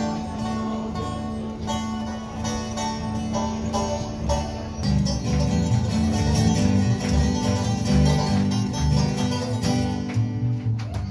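Acoustic folk band playing live, with strummed guitar and upright bass. A low note is held for the first few seconds; then, about five seconds in, the bass moves to a walking line of low notes.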